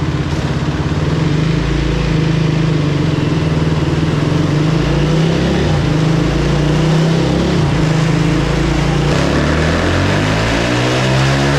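Yamaha four-stroke single-cylinder dirt bike engine running on a chassis dyno, holding a steady speed, then revving up with a steadily rising pitch from about nine seconds in as a dyno pull begins.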